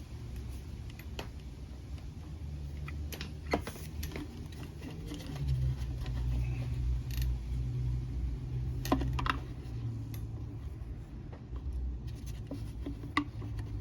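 Scattered light clicks, knocks and scrapes of small plastic and rubber parts being handled, as fuel-line grommets are worked into a string trimmer's fuel tank. A steady low hum runs underneath.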